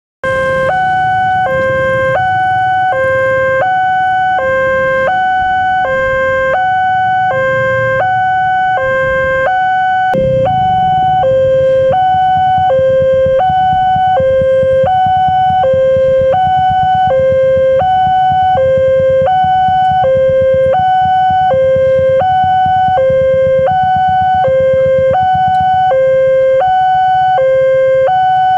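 Indonesian railway level-crossing alarm sounding from the horn loudspeaker on the crossing signal: an electronic two-tone ding-dong, a lower and a higher note alternating evenly, each held about three quarters of a second, warning that a train is approaching and the barrier is down. A low engine rumble runs underneath.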